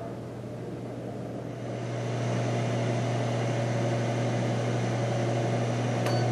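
Ninja Foodi air fryer running in air-crisp mode: a steady fan hum that gets louder about two seconds in, with a short click near the end.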